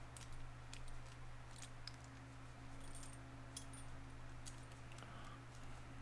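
Faint metallic clicks and scrapes of a padlock bypass tool being worked into a laminated steel padlock while feeling for the spot that releases the latch. A steady low hum runs underneath.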